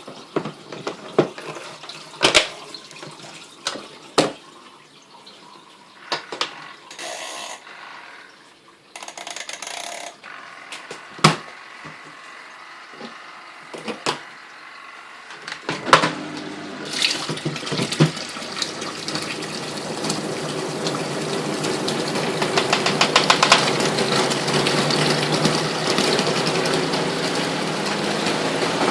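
Scattered clicks, knocks and brief splashing from a twin tub washing machine being handled. About halfway through, the machine's motor starts and runs steadily, growing louder over several seconds.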